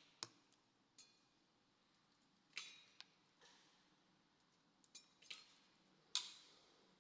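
Small sharp clicks and taps from handling the doorbell's wires and parts, about seven spread unevenly, with near silence between.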